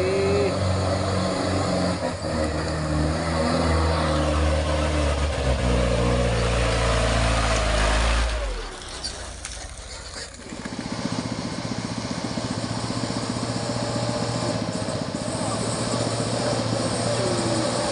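Diesel engines of Mitsubishi Fuso trucks pulling through deep mud. One truck's engine is loud and close, then drops away abruptly a little past eight seconds in. About two seconds later the next truck's engine comes in steadily as it approaches.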